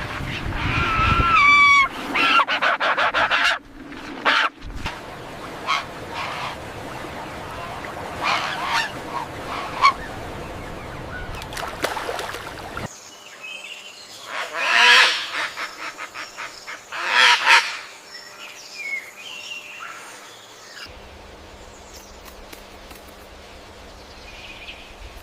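Honking bird calls, repeated many times across several short clips cut together, with the loudest calls about two thirds of the way through.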